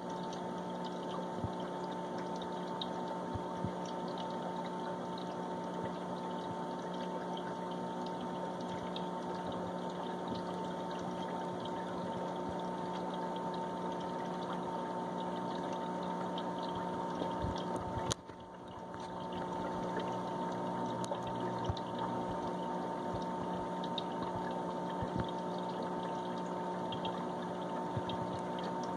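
Aquarium filter running: a steady water trickle and pump hum with a constant faint whine. About eighteen seconds in there is one sharp click, and the sound drops briefly before building back up.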